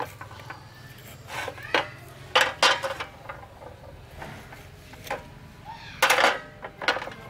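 Metal cookware and utensils clattering and clinking in a series of short knocks and scrapes, loudest about two and a half seconds in and again about six seconds in.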